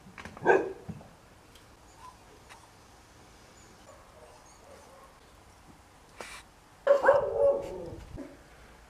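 A dog barking: one short bark about half a second in, then a longer, drawn-out bark about seven seconds in that drops in pitch at its end. A light knock comes just before the second bark.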